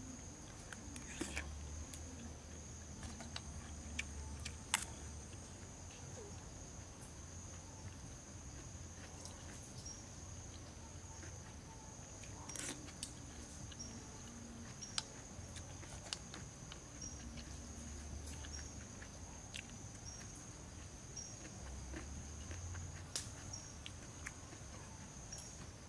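Steady high-pitched insect chorus droning throughout, with scattered light clicks and taps of a spoon against a bowl and plate during eating.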